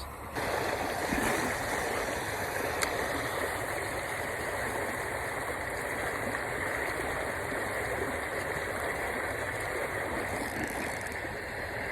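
Steady rushing of flowing water where a river runs into a small lake.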